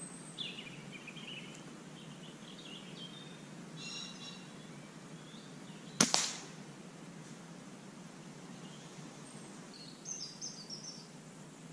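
A single shot from a sub-12 ft-lb .177 PCP air rifle, a sharp crack about six seconds in with a second smaller crack right after it. Birds chirp and sing in the woodland before and after the shot.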